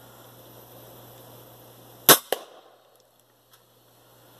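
A single shot from an FX Impact MkII .30-calibre PCP air rifle, a sharp crack about two seconds in, followed a quarter second later by a smaller crack as the hybrid slug strikes the water-filled beer can.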